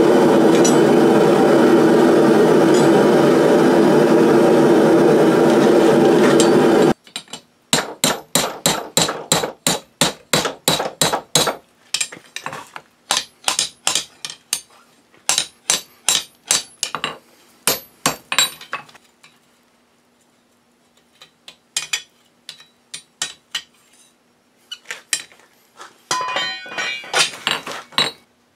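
A gas forge's burner runs steadily for about the first seven seconds and then cuts off. A hand hammer then strikes hot steel on an anvil in quick runs of about three blows a second, then in fewer, lighter taps, with a last quick flurry of blows near the end.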